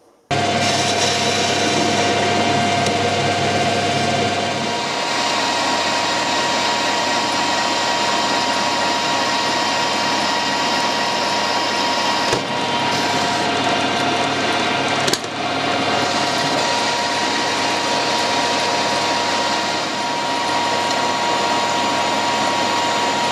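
Metal lathe starting suddenly and running steadily while a carbide-insert tool turns a stainless steel bar. The cutting and machine noise carries a steady whine.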